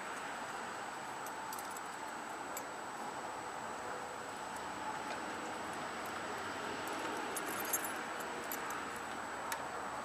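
A bunch of keys giving scattered faint metallic clicks and jingles as keys are tried in a Craftsman tool box lock, over a steady hiss.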